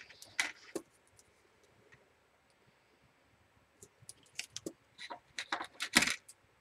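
Double-sided sticky tape being laid along a strip of patterned paper and drawn off its roll. A few soft clicks and crackles come at first, then a pause, then a quick run of crackling clicks in the last few seconds, loudest near the end.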